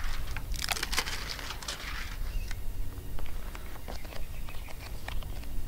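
Clear plastic backing film rustling and crackling as it is peeled off a strip of Flex Tape, for about a second and a half, then scattered light ticks and taps as the tape is pressed down by hand onto a plastic mower trailing shield.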